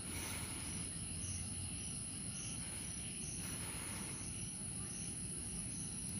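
Insects in park vegetation: a steady high-pitched drone with a faint chirp repeating about twice a second, over a low steady rumble.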